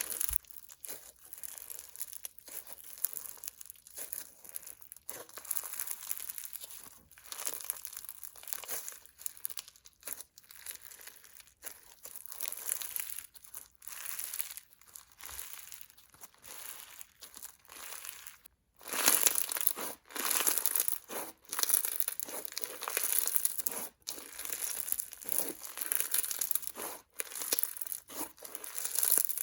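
Clear Bingsu slime full of plastic beads being squished, poked and stretched by hand, giving dense crinkly crunches and crisp bubble pops. About two-thirds of the way in it cuts out briefly, and then the crunching comes back louder.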